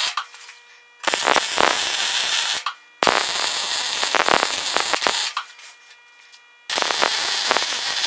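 Electric welding arc crackling in bursts of one to two seconds, separated by short pauses, as 3/8-inch mild steel round bars are tack-welded and then welded together.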